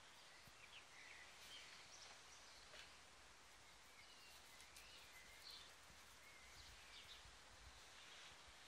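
Near silence: quiet outdoor background with faint, scattered short bird chirps now and then.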